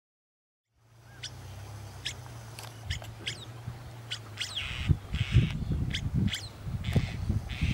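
Birds calling in short, sharp falling notes, several times, over the low rumble of wind on the microphone, which turns gustier and louder about halfway through. The sound starts about a second in, after silence.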